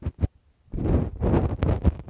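Lace-gloved fingers tapping and rubbing right on a microphone: a few soft taps, a brief pause, then dense, scratchy rubbing from about three-quarters of a second in.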